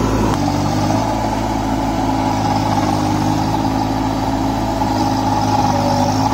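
Kubota 21 hp 4WD mini tractor's diesel engine running steadily under load, pulling a rotavator through a flooded paddy field for puddling.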